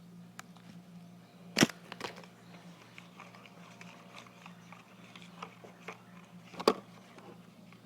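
Two sharp knocks, about five seconds apart, with a few faint ticks between, over a steady low hum.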